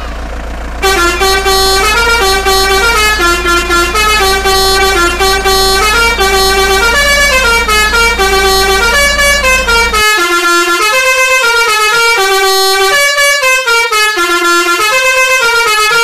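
Basuri telolet multi-tone horn playing a melody of short stepping notes, starting just under a second in. A steady low hum runs beneath it and cuts off about ten seconds in.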